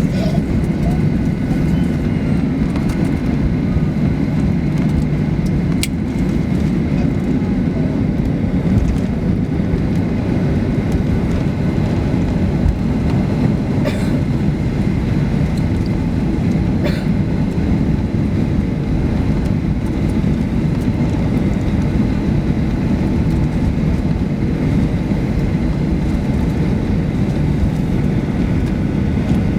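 Steady cabin rumble inside a Boeing 737-800 airliner: its engines and air system running evenly, with a faint high whine above.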